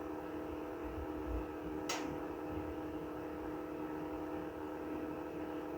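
Hot-air rework station blowing steadily, a fan hum with a steady tone, as it heats the flux-coated power IC on a phone board to reflow it. A single short click about two seconds in.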